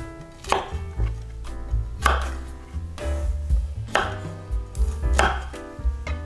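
Knife cutting vegetables on a cutting board: about four sharp, crunchy strokes a second or two apart, over background music.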